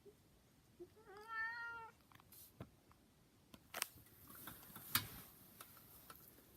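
A domestic cat meows once, a short call about a second in. A few faint sharp clicks or taps follow.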